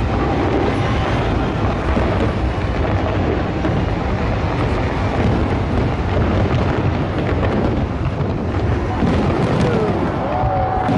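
Fireworks display: a continuous low booming rumble under crowd noise, with a few gliding whistles near the end.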